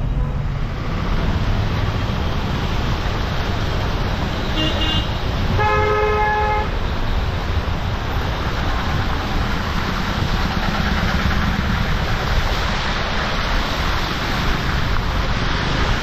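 Steady noise of a car driving through a flooded street, its tyres running through standing water amid traffic. About four and a half seconds in, a short, high vehicle horn toot, followed almost at once by a lower horn blast lasting about a second.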